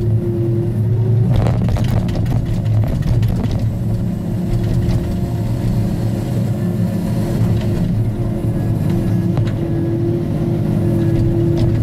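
Diesel engine of a Timbco tracked feller buncher running steadily, heard close up, with a steady hum over it. A brief clatter comes about a second and a half in.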